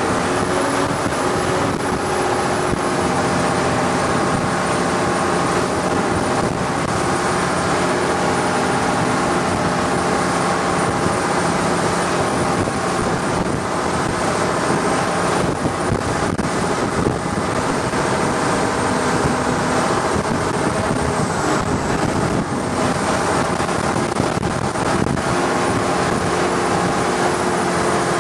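Engine of a wooden long-tail boat running steadily while under way, with a constant rush of wind and water over the hull.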